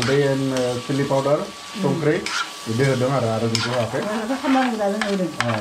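Metal spatula stirring and scraping chicken curry around a stainless steel pan, in pitched scraping strokes with short pauses between them, while the food sizzles.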